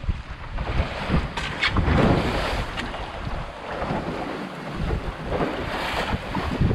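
Wind buffeting the microphone over the rush and splash of water streaming past the hull of a Drascombe Lugger sailing fast off the wind in a fresh breeze. Sharper splashes come about a second and a half in and again near the end.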